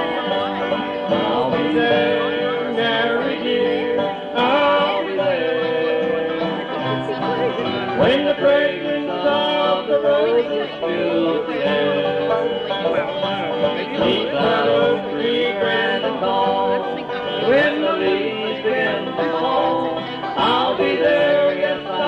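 Bluegrass band playing an instrumental break on banjo, guitar, fiddle and bass, heard from a live cassette tape recording.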